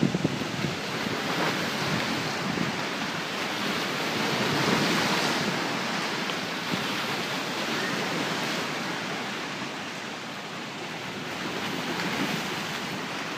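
Lake water rushing and splashing in a steady wash, with wind in the air. It swells a little about four to five seconds in.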